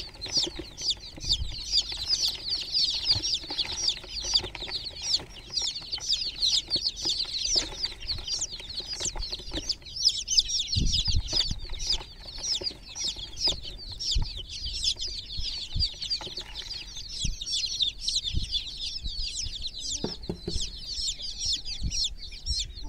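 A group of baby chicks peeping without pause, many short high cheeps overlapping one another.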